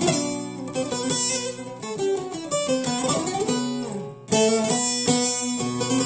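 Long-necked bağlama (saz) played solo: a melody of quick plucked notes over steady low ringing tones. About four seconds in the playing dips briefly, then comes back louder.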